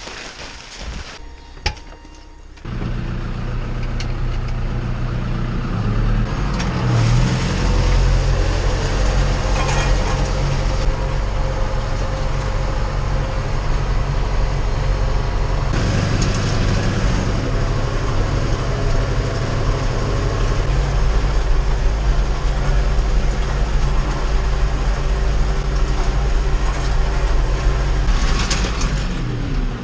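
Tractor diesel engine running steadily. It comes in abruptly a few seconds in and grows louder about six seconds in.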